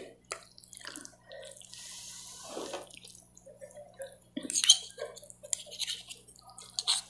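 A person eating fried noodles: chewing and lip smacking with a few sharp clicks, and a longer hiss about two seconds in.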